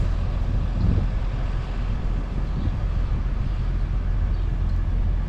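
Farm tractor engine running steadily with a low, even rumble.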